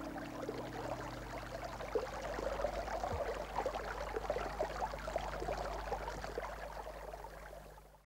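Small stream trickling and splashing over a fallen log, with a steady low hum underneath; the sound fades out just before the end.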